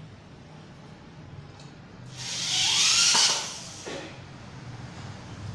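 Corded electric drill run in one short burst of about two seconds, a hissing whir whose pitch rises as it spins up, driving a screw into a wooden bed panel.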